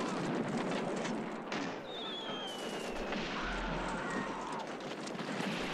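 War-film battle sound: dense gunfire and explosions, with a falling whistle about two seconds in and a deep rumble near the end.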